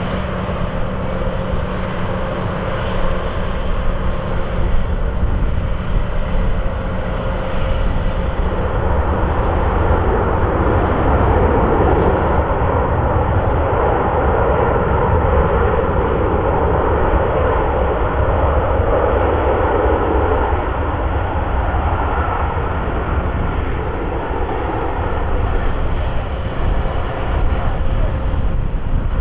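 Jet airliner's engines and airflow during the landing roll-out of an Airbus A330-300 with Rolls-Royce Trent 700 engines: a continuous loud rushing jet noise that swells for about ten seconds in the middle, then eases.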